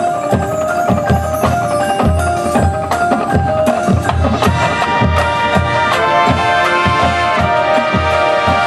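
Drum and bugle corps playing: bass drums and snares beat a steady rhythm of about two or three strokes a second under marimbas and vibraphones and held chords, which grow fuller about six seconds in.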